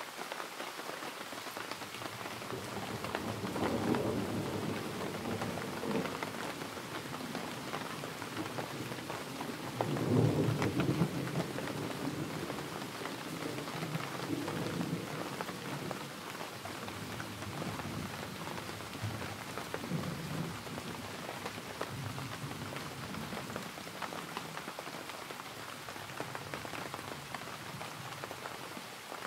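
Steady rain falling, with rolls of thunder rumbling low about four seconds in and again, loudest, about ten seconds in, then fainter rumbles later.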